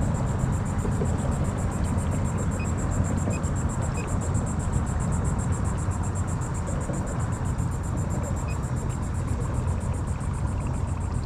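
Kayak under way on its trolling motor: a steady low rumble of motor, wind and water, with a faint high steady whine over it.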